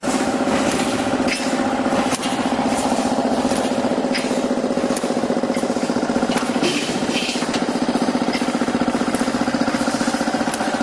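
Automatic wire-mesh welding machine running: a steady electric buzz that pulses rapidly and evenly as it welds the mesh, with scattered short metallic clicks and clanks from the feed.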